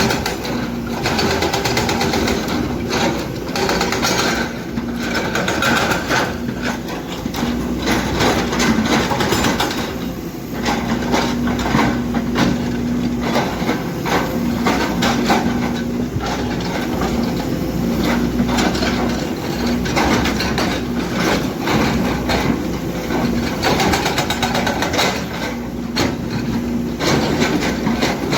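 Kobelco hydraulic excavator's diesel engine running steadily while its hydraulic breaker hammers stone in rapid, continuous blows.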